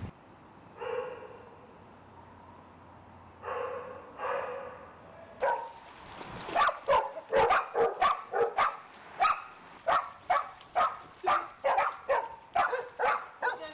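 Dogs barking: a few drawn-out calls at first, then from about five seconds in a run of loud barks, roughly two a second.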